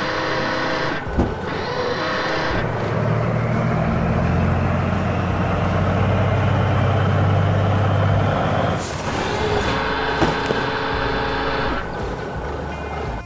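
Heavy truck engine sound effect running, a low steady drone through the middle, with a short hiss like an air brake about nine seconds in.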